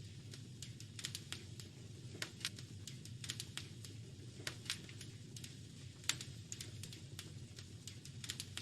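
Fire crackling in a fireplace: irregular sharp snaps and pops, a few each second, over a steady low rumble.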